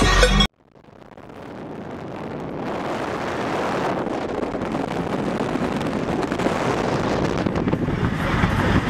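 Music cuts off abruptly about half a second in; a steady rushing noise like wind on the microphone then fades in over a couple of seconds and carries on evenly.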